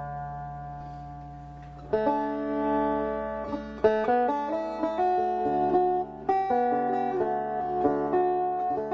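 Plucked string instrument music: a held chord rings out, then from about two seconds in a melody is picked over steady low drone notes.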